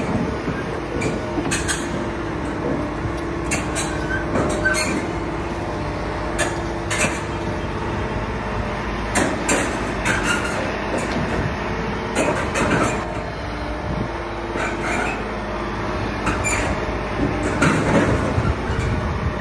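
A heavy machine's diesel engine running steadily with a constant hum, and many sharp metallic clanks and knocks at irregular intervals throughout, as from an excavator working and loading.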